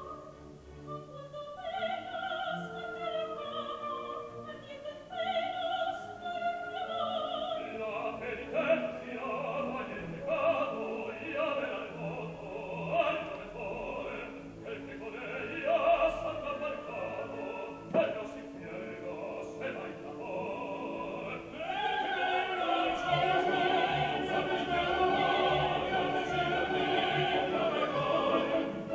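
Opera singing with orchestral accompaniment. About two-thirds of the way through, the music becomes louder and fuller as more voices join in ensemble.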